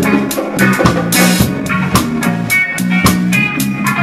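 Live reggae band playing, heard close to the drum kit: drums and cymbals struck in a steady rhythm over bass guitar and guitar.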